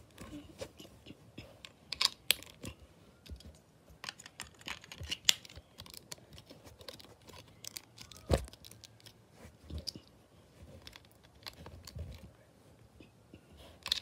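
LEGO bricks being handled and pressed onto a baseplate: irregular sharp plastic clicks, with one heavier knock about eight seconds in.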